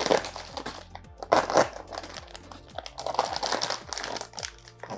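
Clear plastic fish shipping bag crinkling in bursts as it is handled and opened, loudest right at the start and about a second and a half in.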